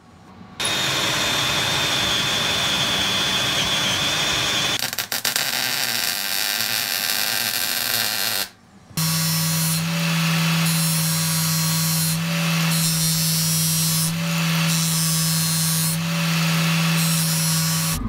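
Electric arc welding crackling and hissing as beads are laid onto the end of a steel pipe. After a short break about halfway in, a vice-clamped angle grinder runs with a steady motor hum while the pipe end is pressed against its disc, grinding the weld beads smooth in pulses.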